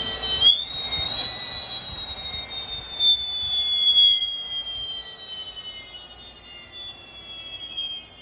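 High-pitched electric motor whine from a high-power electric bike, climbing steeply in the first second as it accelerates, then slowly falling in pitch as it coasts down.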